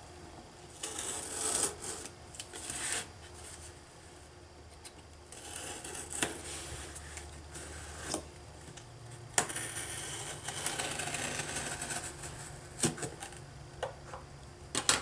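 Utility knife slicing through the packing tape on a cardboard shipping box: three scraping strokes along the seam, with a few sharp clicks and taps of blade on cardboard.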